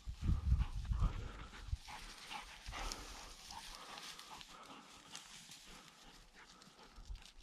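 Footsteps and rustling through tall dry grass, with heavy low thumps in the first two seconds and fainter swishing after.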